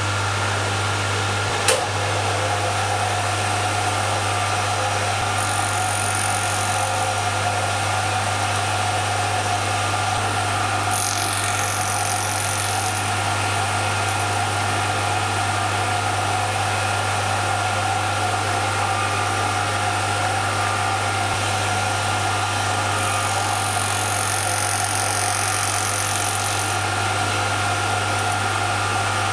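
Small milling machine running a spinning fly cutter through a brass wheel blank, cutting triangular teeth: a steady motor hum with a constant whine, and a high hiss that comes and goes three times as the cutter works the brass. A single sharp click about two seconds in.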